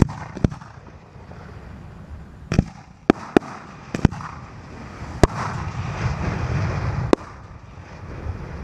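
Fireworks shells launching and bursting: a series of sharp bangs, about eight of them at uneven gaps, with a stretch of crackling hiss from about five to seven seconds in.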